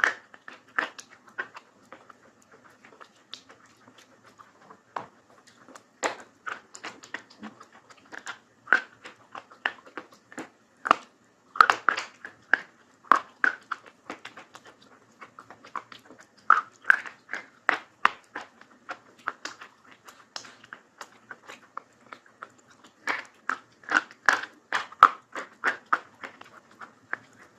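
Close-up crunching of brittle white items being bitten and chewed. It comes as irregular sharp cracks and crackles in clusters, with short pauses between bites.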